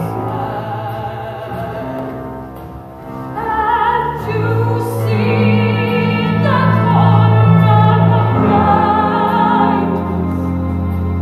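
A woman singing a slow show-tune melody with vibrato over held, sustained accompaniment notes, growing louder about four seconds in.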